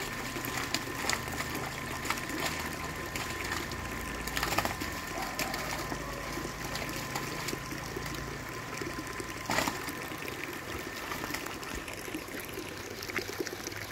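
Water trickling and flowing in a nearly drained concrete fish pond, with a few brief splashes, the loudest about nine and a half seconds in.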